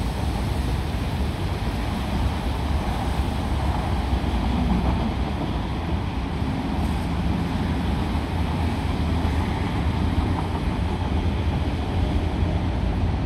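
Steady traffic noise from cars on a wet road, with wind on the microphone adding a low rumble.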